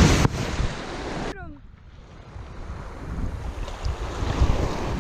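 Wind buffeting the microphone by the water: rushing noise that drops off abruptly about a second in, then builds back up.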